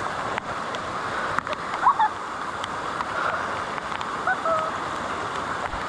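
Steady rush of floodwater running through a grassy ravine, with raindrops ticking sharply on the camera housing now and then. A few brief, faint voice sounds come about two seconds in and again near the end.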